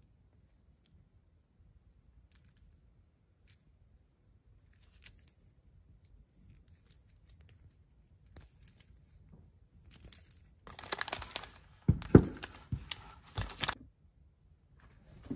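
Faint clicks and rubbing from a small plastic figure being turned in the fingers, then about three seconds of loud crinkling of plastic packaging, with a couple of low thumps partway through.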